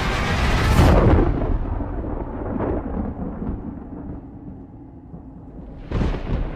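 Deep booms in a film soundtrack over a steady rushing noise: a loud boom about a second in that rolls away over a couple of seconds, and another sharp boom near the end.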